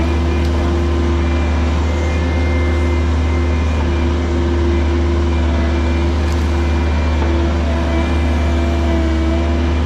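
Mini excavator's diesel engine running steadily under work, with a deep drone and a pitch that sags briefly twice.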